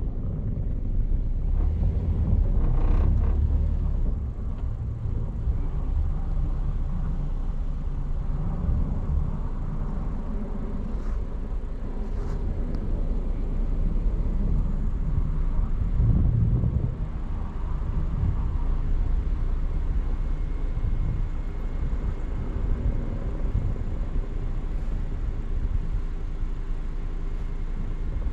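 Steady low rumble of a car driving along a road: tyre and engine noise.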